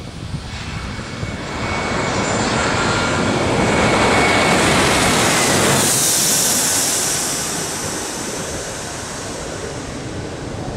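Twin rear-engined jet airliner passing low overhead as it comes in to land. Its engine noise builds to a peak about halfway through, with a thin whine and then a high hiss, and eases off as it heads down the runway.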